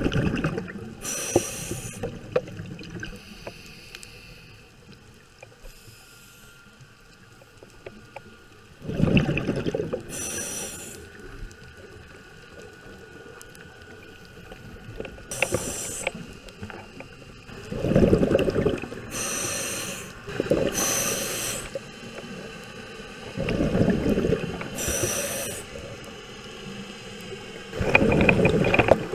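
Scuba diver breathing through a regulator underwater: exhalations come as low rushing bursts of bubbles about five times, each followed by the short high hiss of an inhalation through the demand valve.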